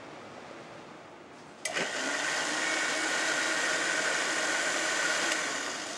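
Countertop blender switched on about a second and a half in, running steadily as it blends pepper soup with cream just added, then winding down near the end.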